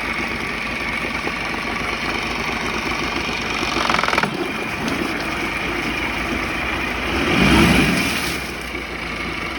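Honda 8 HP four-stroke outboard motor running steadily at idle, with a short louder rattly patch about four seconds in and a brief swell in engine noise a little after seven seconds.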